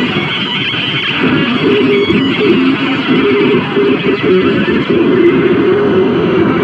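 Live harsh noise music from electronics: a loud, unbroken wall of dense noise with short wavering tones running through its lower range.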